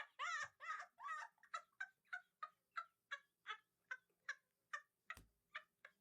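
A domestic fowl calling in a quick run of short, pitched notes, about two or three a second, that grow shorter and fainter. A sharp click comes about five seconds in.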